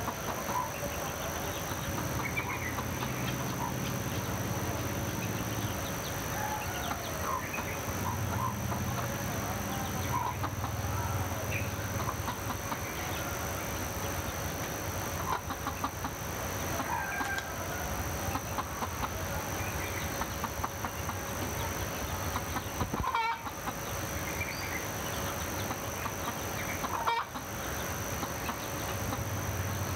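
Chickens clucking amid many short bird chirps, over a low murmur and a steady high tone.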